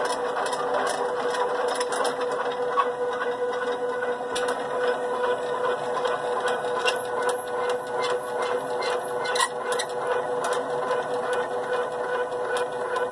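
Stepper motors of a homemade 3D printer driving the Z axis up and down: a steady motor whine with a dry rubbing squeak, because the Z axis is dry and needs grease.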